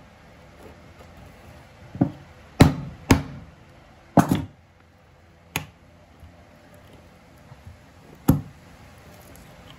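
Hand-pushed chisel chopping down through a small oak wedge and into a wooden workbench, giving about six sharp knocks at uneven intervals, the loudest a little under three seconds in.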